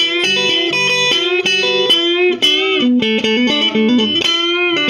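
Squier Classic Vibe Duo-Sonic electric guitar playing a blues lead: a run of single picked notes with string bends, ending on a held note.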